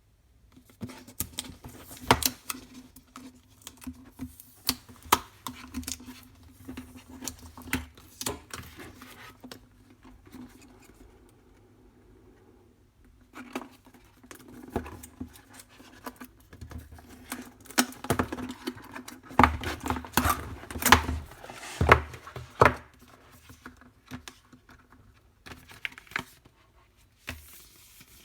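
A video doorbell's box and parts being handled during unboxing: irregular clicks, taps and scrapes, quieter for a few seconds partway through, over a faint steady hum.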